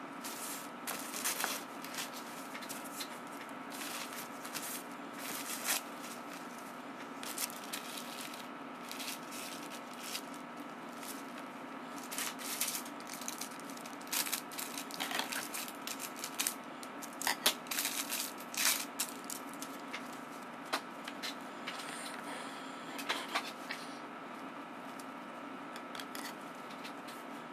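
Paper and a plastic bag crinkling and rustling in short, irregular crackles as they are handled and spread out on a table, over a steady background hum.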